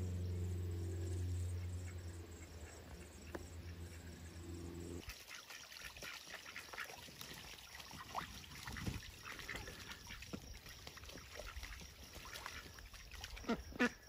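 Ducks bathing in shallow tubs of water, splashing and flinging water about, with a few short quacks. A steady low hum runs under the first five seconds, then cuts off.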